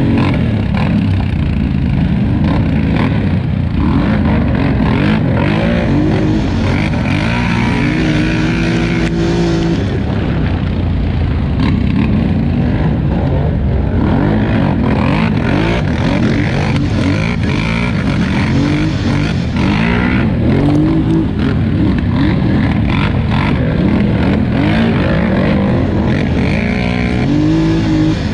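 Polaris Scrambler 1000 XP ATV engine heard from on board while racing hard, its pitch climbing as it revs up several times, under a constant rumble of wind and rough terrain.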